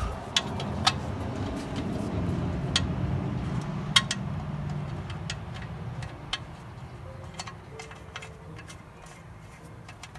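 Scattered sharp metal clicks and taps as the sump drain plug under the engine is handled and refitted by hand and tool, over a low rumble that fades during the second half.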